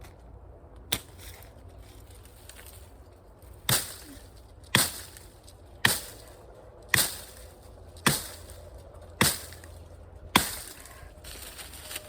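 Axe blows chopping into wood while debranching a cut tree: one strike about a second in, then seven heavy strikes in a steady rhythm of about one a second.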